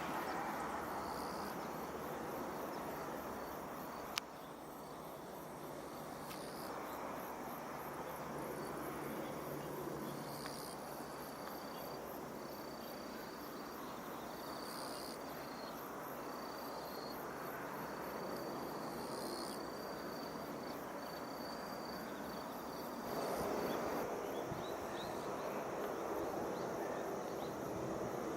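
Insects chirping outdoors in short high trills every few seconds over a steady rushing background, with a single sharp click about four seconds in. The background grows louder near the end.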